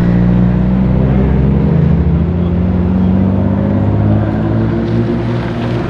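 Modified car's engine and exhaust pulling away at low revs: a loud, deep, steady drone whose pitch sags slightly, easing off a little near the end.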